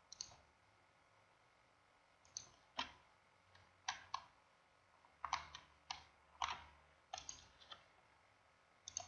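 Computer mouse buttons clicking: about a dozen sharp clicks at irregular intervals, some in quick pairs.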